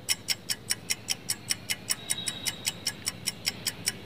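Clock-ticking sound effect marking a quiz's answer timer: even, sharp ticks, about five a second.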